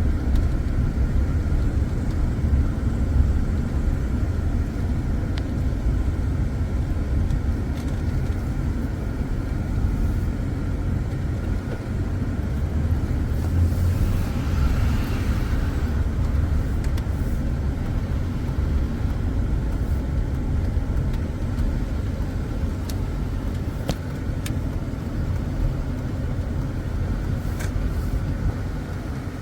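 Vehicle being driven: steady low engine and road rumble.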